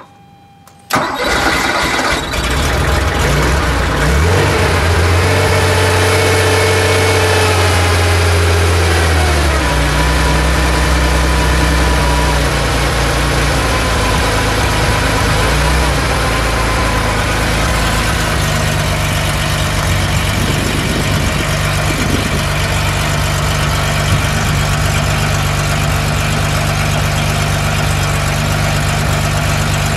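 1971 Porsche 911S's air-cooled 2.2-litre flat-six with mechanical fuel injection starts up suddenly about a second in. It runs at a fast idle, and about ten seconds in the speed drops to a steady, lower idle.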